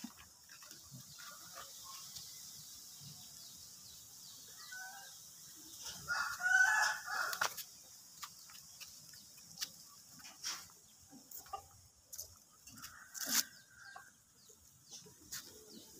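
A rooster crowing: one long crow about six seconds in and a shorter call near thirteen seconds, with scattered small clicks between.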